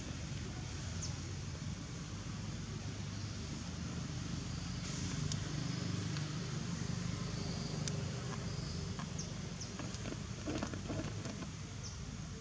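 A steady low engine hum runs throughout, with a few faint clicks and short high chirps over it.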